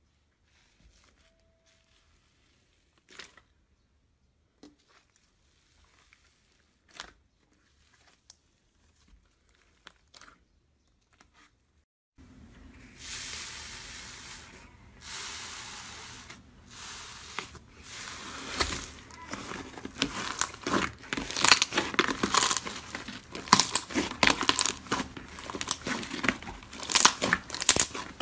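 Hands working slime: at first only a few soft pops as the slime is stretched. After about twelve seconds comes a sudden squishing as fingers press into slime in a tub, which turns into dense, loud crackling and popping of trapped air bubbles as the slime is pressed and pulled apart.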